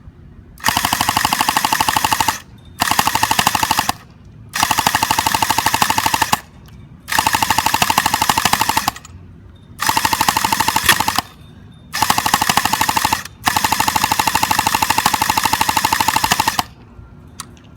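Airsoft M1919 replica machine gun firing seven full-auto bursts of about one to three seconds each, with short pauses between them. Each burst is a fast, even rattle of shots, and the last one is the longest.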